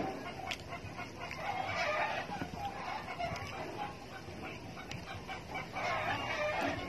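Chickens clucking in the background in short, wavering calls, with a few light taps and clicks of dishes being handled.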